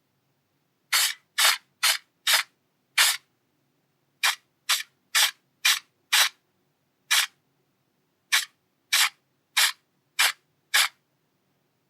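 A series of sixteen short, sharp strokes of noise at about two a second, five and then, after a brief pause, eleven more.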